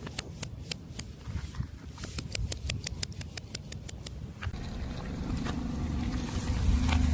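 A car tyre crushing crunchy objects: a run of sharp cracking snaps, coming about four a second in the middle. After about four and a half seconds, the car's engine and rolling tyres rumble steadily, growing louder near the end.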